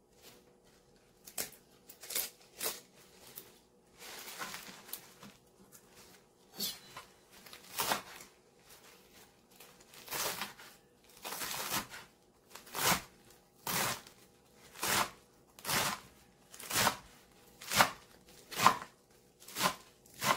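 Large kitchen knife chopping a bunch of kale leaves on a plastic cutting board: scattered cuts and leafy rustling at first, then steady chops about once a second.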